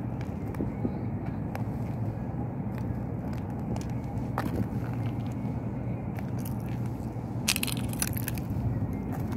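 Steady low outdoor rumble with scattered faint clicks, and a short harsh burst of sound about eight seconds in.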